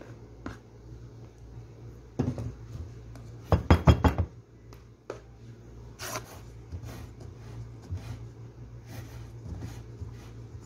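Spatula scraping and knocking against a mixing bowl and an aluminium tube cake pan as cake batter is poured in and spread. The knocks come at irregular moments, with a cluster of loud strikes a little before halfway, over a steady low hum.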